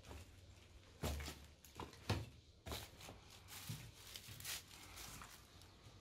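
Footsteps over dry debris: a few sharp steps between about one and three seconds in, then lighter ones.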